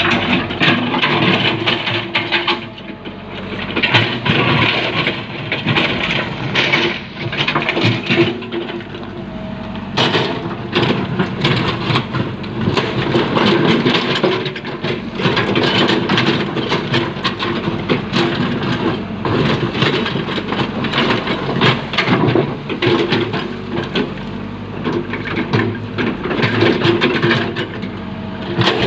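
Komatsu backhoe's diesel engine running under load, its pitch rising and falling as the hydraulics work, with frequent cracks and knocks from the digging.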